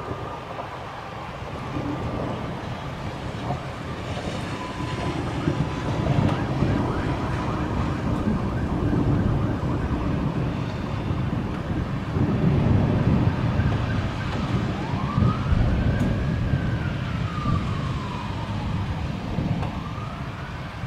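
Low rumble of thunder and rain of a thunderstorm, with an emergency-vehicle siren wailing in the last few seconds, its pitch slowly rising and falling, one long wail followed by the start of another.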